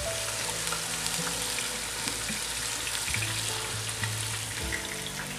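Chopped onions sizzling steadily as they fry in oil in a pot, stirred with a spatula.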